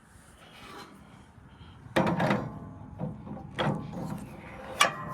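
Clattering and knocking of metal parts or tools being handled, starting suddenly about two seconds in, with a sharp clink near the end that rings briefly.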